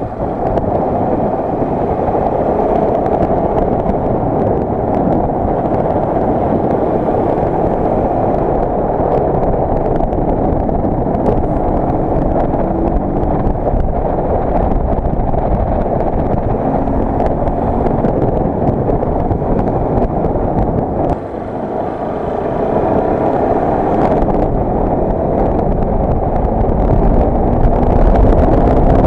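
Motorcycle engine running while riding, its pitch rising and falling with the throttle, over heavy wind noise on the microphone. About two-thirds of the way through the engine briefly eases off, then builds again and is loudest near the end.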